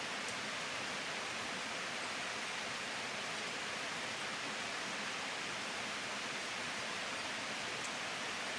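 Steady rushing of a waterfall: an even hiss of falling water that does not change.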